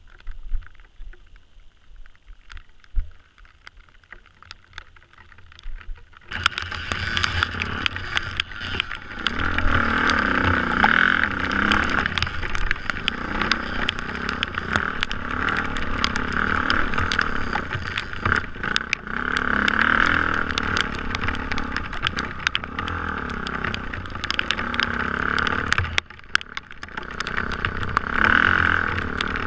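Faint scattered ticking at first. About six seconds in, it cuts abruptly to a dirt bike's engine, recorded from the rider's camera, revving up and down over a rocky trail, with many sharp knocks and rattles from the rough ground.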